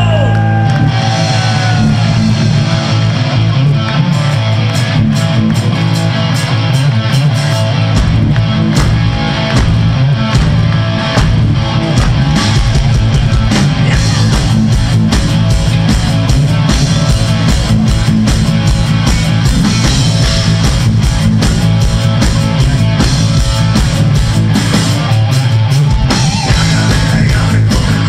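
Live band playing loud amplified music: electric guitar, bass guitar and drum kit, with the drums keeping a dense steady beat.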